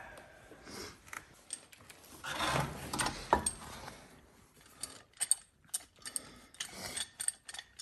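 Socket ratchet clicking in short, irregular runs as a rear brake caliper bolt is turned, with a louder stretch of rubbing and two sharp metal knocks about three seconds in.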